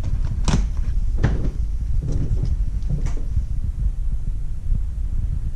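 Low rumbling handling noise with a few light clicks and taps, about half a second, a second and a quarter, and three seconds in, as a glitter container is handled over the slime bowl.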